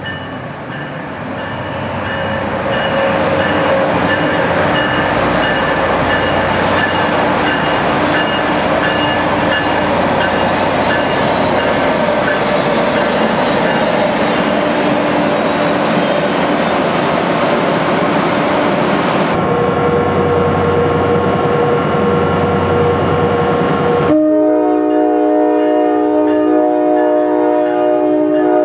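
New Jersey Transit push-pull commuter train of multilevel coaches rolling in past the platform, the rumble of wheels and cars building over the first few seconds and then running steadily. About 24 seconds in, a chord of several steady tones from a train horn begins and holds as the ALP-45DP locomotive pushing at the rear comes alongside.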